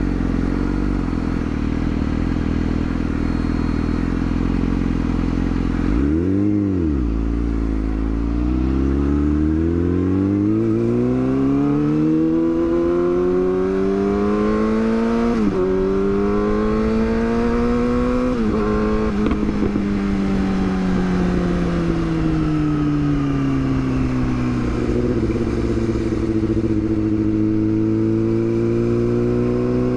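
Yamaha R6 inline-four sport-bike engine running at low revs, blipped once about six seconds in, then accelerating with rising pitch through two quick upshifts, each a sudden drop in pitch. It then eases off as the revs fall, picking up slightly near the end.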